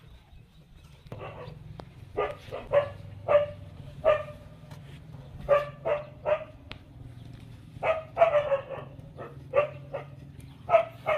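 An animal giving short barking calls, about a dozen in irregular bunches starting about a second in, over a low steady hum.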